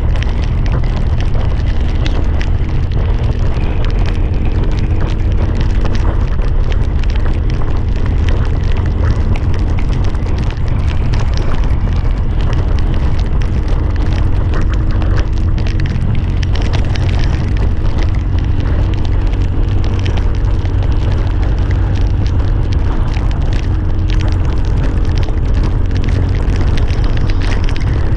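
Motorcycle riding at speed: heavy wind buffeting on the microphone over the engine, whose pitch drifts up and down as the throttle changes.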